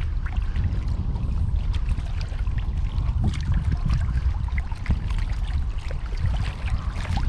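Strong wind buffeting the microphone, a steady low rumble, with small scattered clicks and light splashes of water over it.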